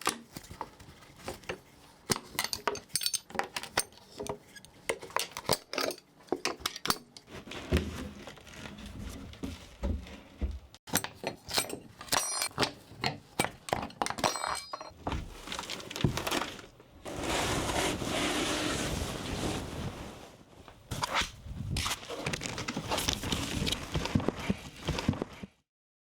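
Handling sounds of small hard parts: a quick, irregular run of clicks, knocks and clinks, with a few seconds of steady rushing hiss in the second half.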